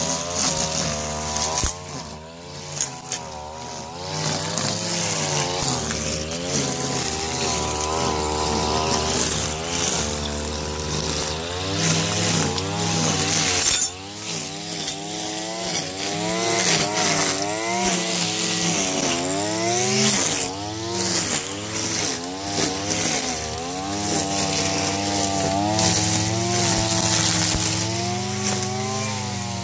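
Mitsubishi TL33 two-stroke brush cutter running and cutting grass with serrated nylon trimmer line. The engine pitch rises and falls repeatedly as the line bites into the grass and frees up again.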